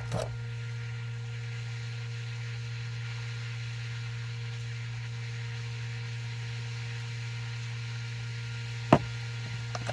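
Steady low hum, with a small click at the start and one sharp knock about nine seconds in.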